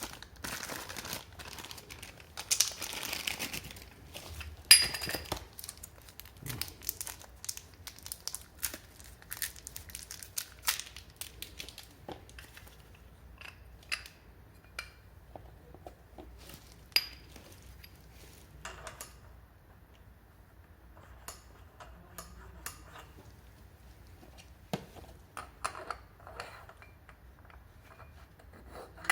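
Plastic packaging crinkling and tearing, with small metal parts of a new scooter variator kit clinking and knocking as they are handled. There is one sharp metallic clink with a short ring about five seconds in, and the handling grows sparser after that.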